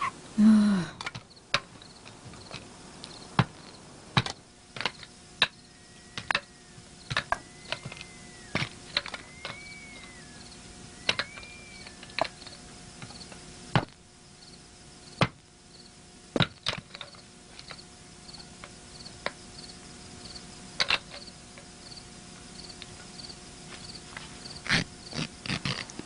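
Irregular sharp knocks of wooden sticks being chopped with a blade, roughly one a second, over a steady pulsing chirp of crickets. A few short whistled chirps come in the middle.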